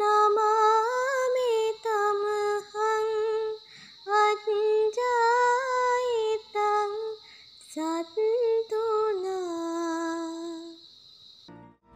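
A woman chanting a Buddhist devotional verse in a slow sing-song melody, in short held phrases with small pitch glides and brief pauses between them; the chant ends about eleven seconds in. A faint steady high whine runs underneath.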